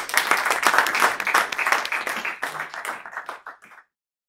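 Audience applauding, a dense patter of many hands clapping that thins out and then cuts off suddenly about four seconds in.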